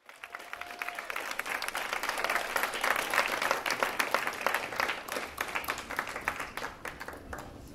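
Audience applauding, building over the first couple of seconds and thinning out toward the end.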